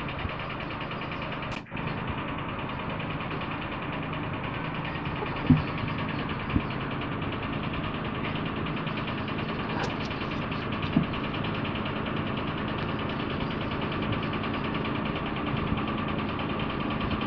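A cat purring close to the microphone: a steady, even rumble broken by a few soft knocks.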